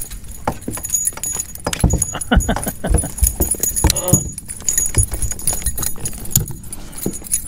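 Irregular clicks, knocks and light metallic jingling as a freshly landed schoolie striped bass is handled on a boat's carpeted deck and unhooked from a spinnerbait.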